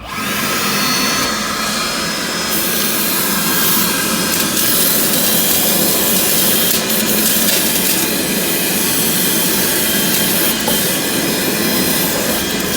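Makita DVC350 18V cordless vacuum starting abruptly and running steadily as it sucks up drilling debris from the floor.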